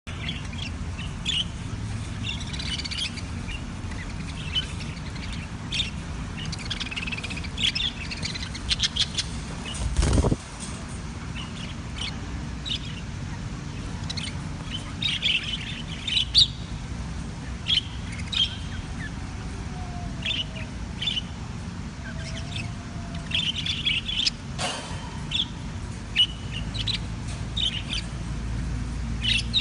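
Budgerigars chirping in short, scattered calls over a steady low hum. A loud thump comes about ten seconds in, and a sharp click just before twenty-five seconds.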